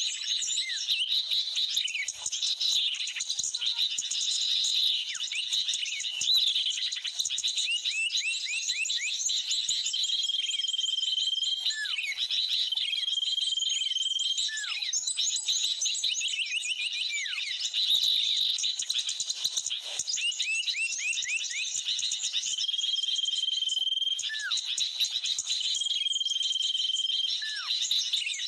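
Bird-trapping lure recording of agitated sooty-headed bulbul (kutilang) calls mixed with small birds: a dense, continuous chorus of chirps and quick downward-sweeping notes. A clear held whistle repeats about four times in the second half.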